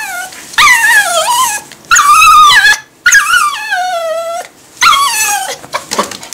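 Toy poodle whining in a run of about five long, high-pitched cries, each up to about a second and a half long and mostly sliding down in pitch, with short gaps between them.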